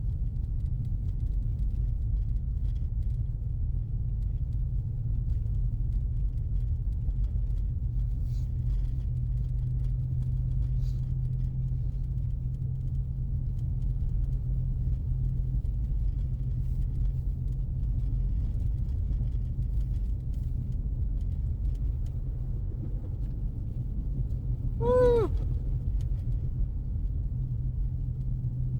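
Steady low cabin rumble of a 2024 Ford Mustang EcoBoost's 2.3-litre turbocharged four-cylinder and its tyres as it drives through deep snow, heard from inside the car. A brief pitched sound cuts in once near the end.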